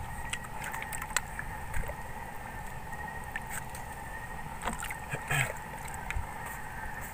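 Water lapping and sloshing against a small outrigger boat, with scattered light knocks and clicks from gear handled at the boat's side, a few of them sharper around the middle.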